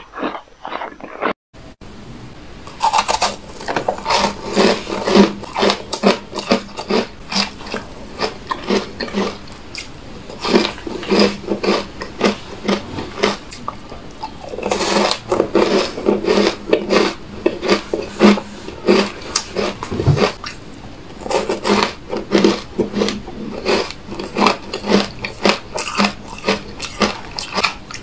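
Close-miked biting and chewing of powder-coated ice chunks: a fast, uneven run of sharp crunches, several a second, broken by a short gap about a second and a half in.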